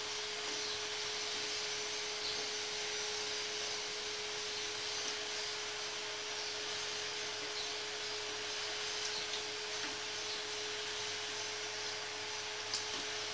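Vegetable manchurian balls deep-frying in hot oil in a kadhai: a steady sizzling hiss over a steady hum, with a couple of light ticks near the end.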